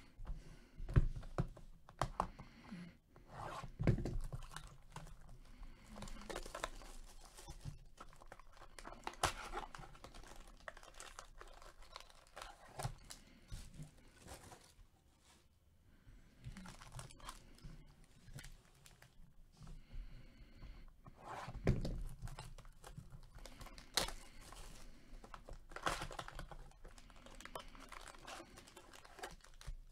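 Two 2020 Topps Star Wars Black & White hobby boxes being unwrapped and opened by hand: plastic wrap tearing, cardboard flaps and box handling, and foil card packs crinkling as they are pulled out and stacked. The rustling is irregular, with sharper louder crackles now and then.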